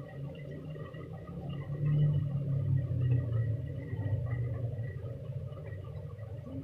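Grated carrots cooked down in milk bubbling thickly in a pot, a low, uneven burbling that is loudest about two seconds in; the milk has nearly boiled off.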